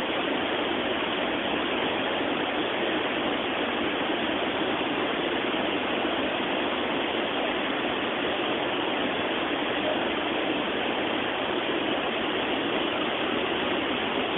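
Waterfall: a steady, unbroken rush of falling water, spring water pouring out from between layers of volcanic rock.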